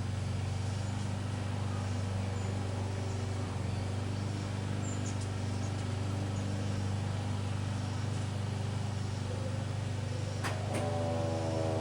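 A steady low hum carries a few faint steady tones, then two sharp clicks come near the end. The Kuangbad RF300V vertical siren then starts to wind up, several tones rising slowly together.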